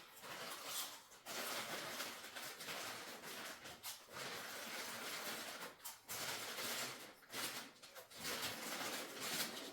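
Lay's potato chip packet crinkling and chips being crunched and chewed in a hurry, with a few short pauses.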